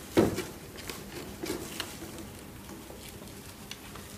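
Hands handling a braiding machine's plastic carriers and threads: a sharp knock about a quarter second in, then a few scattered light clicks over a faint steady hum.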